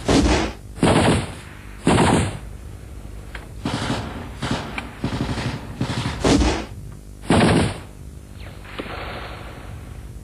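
Assault rifles firing short bursts of automatic fire: about eight loud bursts, irregularly spaced roughly a second apart, then quieter for the last couple of seconds.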